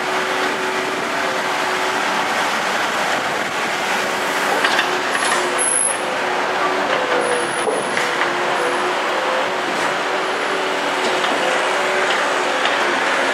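Steady, loud street noise of vehicle engines, with a heavy vehicle's engine among them, and a few brief faint high squeals in the middle.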